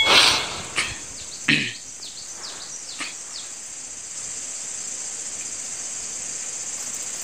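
Steady high-pitched drone of insects in dry scrub. In the first two seconds there are a few sharp knocks and rustles, the loudest at the very start, then several short falling chirps.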